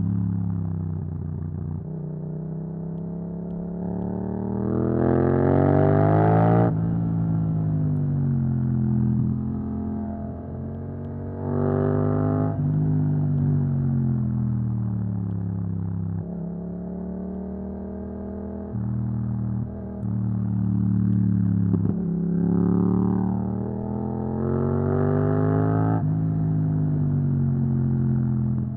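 Yamaha MT-07 parallel-twin engine with an Akrapovic exhaust, accelerating hard several times, its pitch climbing through each gear and dropping sharply at the shifts, with lighter running and engine braking in between.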